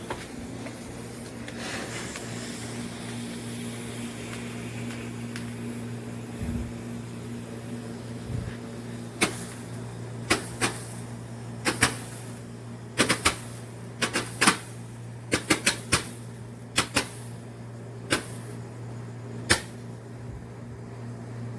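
Alien Fireworks Big Snow consumer firework going off. It hisses steadily for the first several seconds, then from about nine seconds in it gives a long string of sharp bangs at irregular spacing, some in quick clusters.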